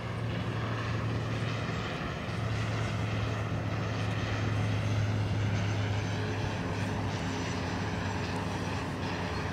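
De Havilland Canada Dash 8-400 turboprop on final approach, its two Pratt & Whitney PW150A engines and six-bladed propellers giving a steady low propeller drone. The drone grows a little louder from about two seconds in as the airliner draws nearer.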